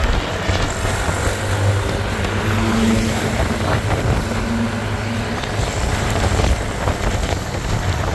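Road traffic: vehicle engines and tyres making a steady low rumble, with the faint hum of a large engine partway through.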